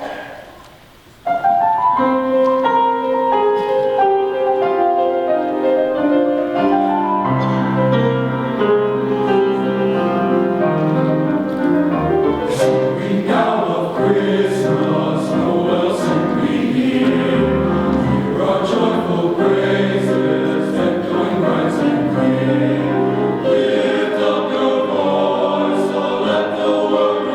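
High school men's chorus singing in parts, starting about a second in with sustained chords; the lower voices come in about seven seconds in and the texture thickens.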